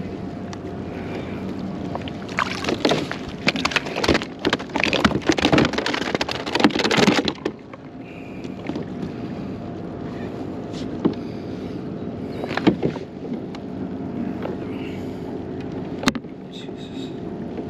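Kayak on the water with a steady low hum, and a dense flurry of splashes and knocks from about two to seven seconds in.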